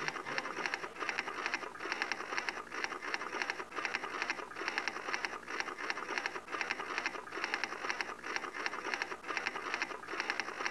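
Typewriter sound effect: a rapid, even clatter of keystrokes.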